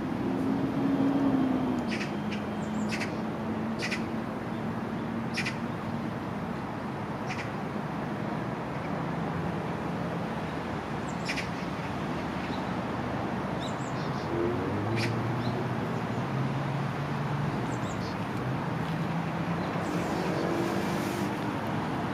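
City park ambience: a steady hum of distant road traffic with low engine tones, over which birds give short, sharp chirps every few seconds.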